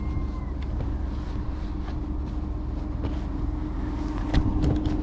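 A motor running steadily with a low rumble and a constant hum, with a few sharp knocks or clicks, the loudest around four seconds in.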